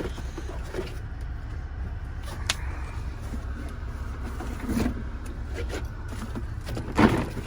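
Steady low rumble of an idling engine, with a few short knocks and clicks of tools being handled, the loudest about seven seconds in.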